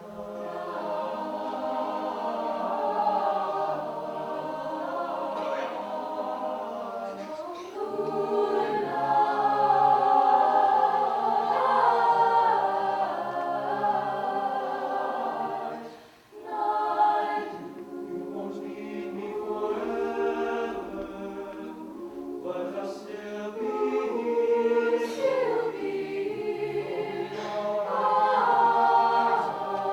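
Vocal group singing a cappella in close harmony, several voices together with no instruments. There is a brief break about halfway through before the singing resumes.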